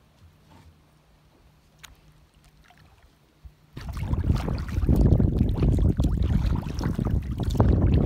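Kayak on open water: at first only faint lapping water, then from about four seconds in, loud wind buffeting the microphone, mixed with water splashing against the kayak's bow.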